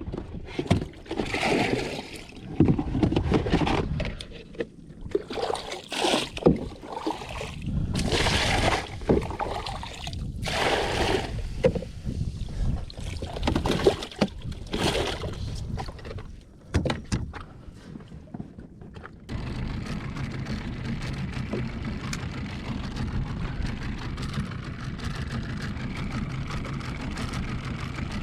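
Irregular sloshing and splashing of water around a small boat for most of the stretch, then about two-thirds of the way through an outboard motor starts and runs steadily.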